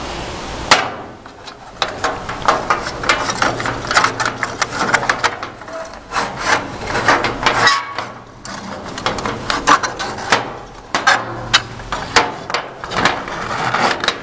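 Bent aluminum channel-letter strip being handled and fitted together by hand: irregular clicks, knocks and scraping of the thin metal against itself and the metal worktable.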